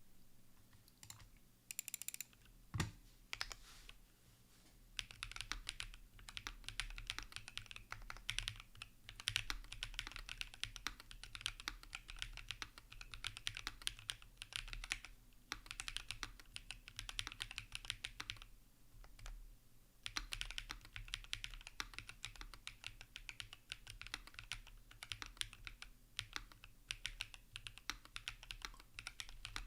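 Typing on a Tenet70 gasket-mount mechanical keyboard with Bolsa Supply Zaku switches, an aluminum plate, plate and PCB foam, and CRP R5 keycaps: a few single keystrokes and a louder knock about three seconds in, then a fast, steady run of keystrokes with brief pauses around four and nineteen seconds.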